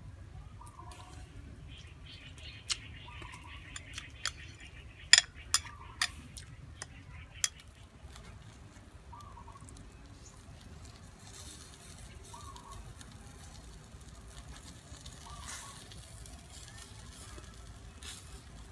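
A metal spoon clinking against a ceramic bowl several times as shredded green mango salad is mixed, the sharpest clinks about five to six seconds in. Later a faint sizzle of whole fish grilling on skewers over a charcoal clay stove.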